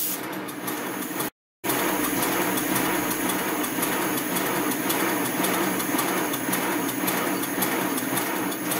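Miniature steam locomotive running with its wheels spinning free on a stand, the valve gear and crossheads working: a steady hiss over a mechanical running sound, with a brief break about a second and a half in.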